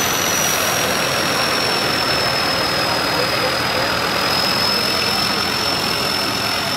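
Tatra 815 6x6 trial truck's diesel engine running steadily under way in deep mud, a loud even drone with a thin high whistle that sinks slightly in pitch over the first few seconds.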